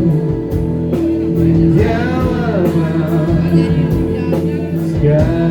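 Live band playing a slow pop ballad: held chords, guitar and a steady drum beat, with a short sung phrase about two seconds in.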